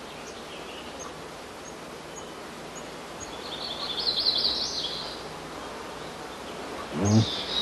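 Forest ambience with small birds: faint high chirps in the first few seconds and a brief warbling trill about four seconds in. Near the end a low-pitched hoot begins: the courtship call of a male blue grouse.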